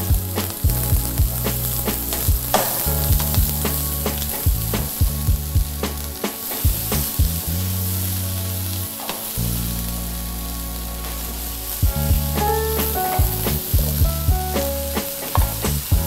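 Julienned vegetables sizzling in hot oil in a wok while a wooden spoon stirs them, knocking and scraping against the pan again and again.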